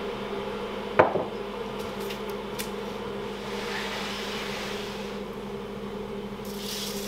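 One sharp knock about a second in as a glass water jug is set down on wood, then a soft scrape as a wooden chopping board is slid along the worktop, over a steady low hum.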